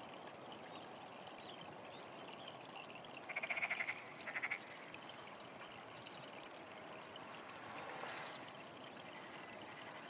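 Frog calling: two short pulsed croaks about three and a half seconds in, over a steady background hiss.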